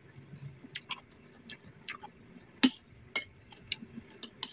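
Faint mukbang eating sounds: crisp chewing of cucumber rujak and a metal spoon clinking and scraping against the ceramic plate, as scattered small clicks with two sharper clicks a little past halfway.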